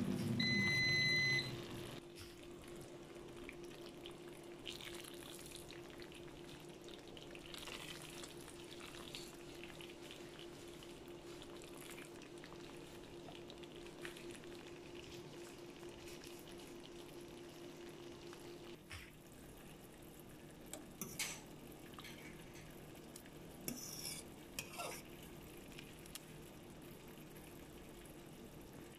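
Tomato sauce simmering and sizzling in a frying pan, stirred now and then with a silicone spatula, with a few short scrapes and taps in the second half. A loud beep lasting about a second comes right at the start.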